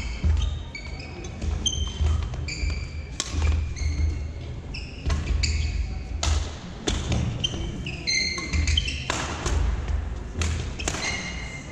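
Badminton rally on a hardwood court: sharp racket strikes on the shuttlecock, short high shoe squeaks on the floor, and players' footfalls, repeating irregularly throughout.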